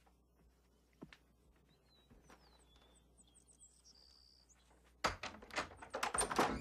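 A front door's lock and knob being worked: a quick run of sharp clicks and knocks starting about five seconds in as the door is unlocked and unlatched, after a few seconds of quiet room tone.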